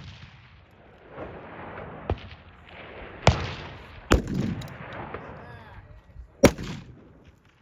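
Precision rifle shots, sharp cracks each followed by a long rolling echo: a fainter one about two seconds in, then three loud ones at roughly one- and two-second gaps.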